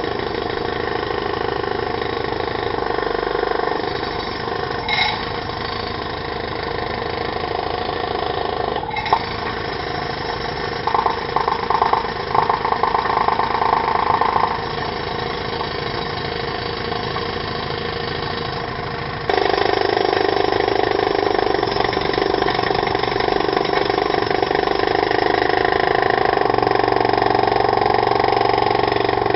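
Pneumatic drill (jackhammer) running with steady mechanical noise, with a stretch of rapid rattling hammering about eleven seconds in; about nineteen seconds in the sound steps abruptly louder and stays there.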